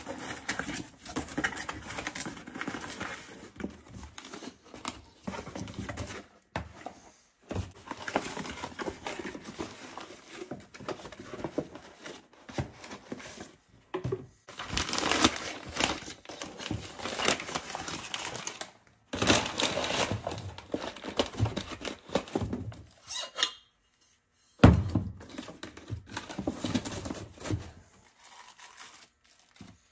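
Cardboard boxes, paper wrapping and plastic bags rustling, crinkling and tearing as piston-and-liner kits are unpacked by hand. A single sharp knock, the loudest sound, comes late on.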